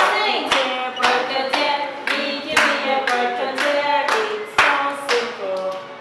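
A sung children's song with steady clapping in time, about two claps a second.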